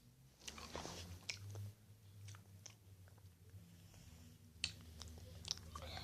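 Faint mouth sounds of a person chewing and working a sour cola-flavoured hard sweet, with scattered small clicks, over a faint low hum.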